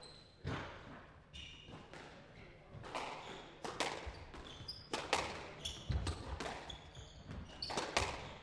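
Squash rally: a squash ball struck hard by rackets and smacking off the court walls, a dozen or so sharp hits at uneven intervals, with shoes squeaking on the court floor.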